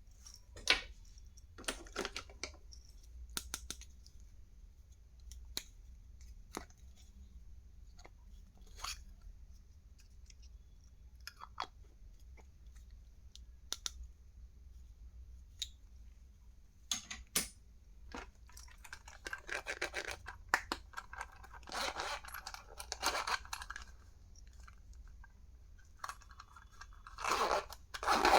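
Stationery and packaging being handled: scattered sharp clicks and taps of small plastic items, with crinkling or tearing of plastic wrapping in two longer stretches in the second half.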